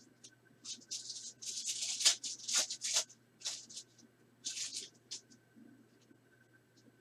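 Trading cards sliding and flicking against each other as a pack of cards is shuffled through by hand, in a run of short swishes and clicks that stops about five seconds in.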